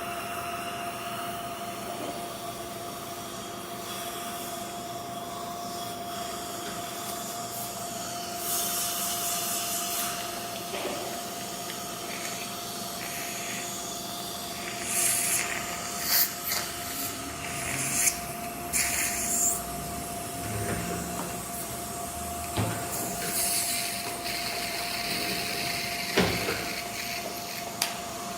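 Dental equipment running: a steady suction hum with several bursts of high hiss, each one to two seconds long, from the dental drill and its water spray.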